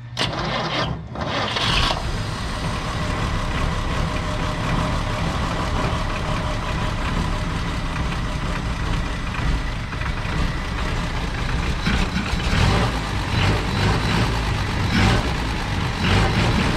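ZIL-157KD truck's inline-six petrol engine being started just after its valve clearances were adjusted: it catches within about two seconds and then runs steadily, with some louder uneven surges in the last few seconds.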